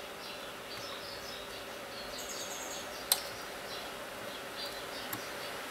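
Hot air rework station blowing steadily, a hiss with a faint hum, while it heats the faulty 3.3 V regulator to desolder it from the circuit board. Short high chirps come and go, and a single sharp click sounds about three seconds in.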